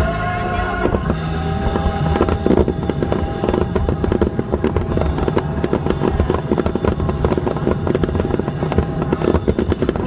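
Aerial fireworks going off in a dense run of cracks and pops, with music playing underneath.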